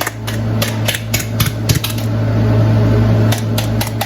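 Repeated sharp knocks and taps of a utensil against a can as refried beans are emptied and scraped out into the pan, over a steady low hum. The knocks come in a quick run in the first two seconds, then again near the end.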